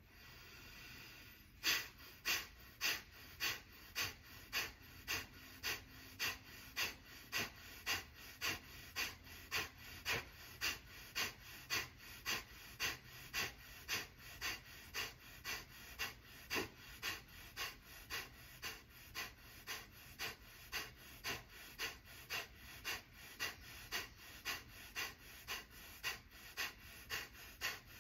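A man doing kapalbhati breathing: short, forceful exhalations through the nose, a little under two a second, each driven by a snap of the diaphragm, with quiet passive inhales between. The steady rhythm begins about one and a half seconds in.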